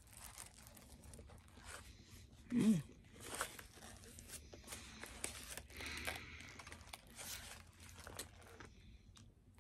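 Crunchy biting and chewing of a crispy fried chicken sandwich, with its paper wrapper crinkling in the hands. A short hummed 'mm' with a bending pitch about two and a half seconds in is the loudest sound.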